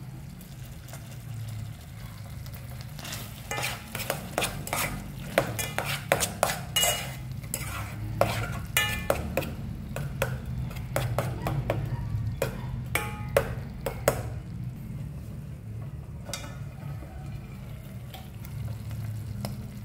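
Metal spoon stirring and scraping corned beef in an aluminium pot, with many sharp clinks of the spoon against the pot from about three seconds in until about fourteen seconds. A steady low hum runs underneath.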